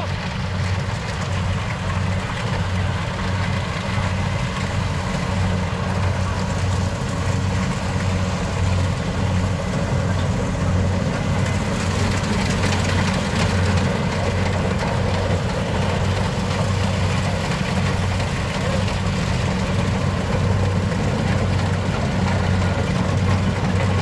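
A farm machine's engine running steadily at constant speed: a low drone with a regular pulse that holds level throughout.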